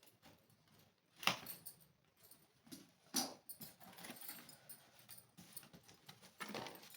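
Packaging and parts being handled: rustling and scratching with three sharper clatters, about a second in, about three seconds in and near the end.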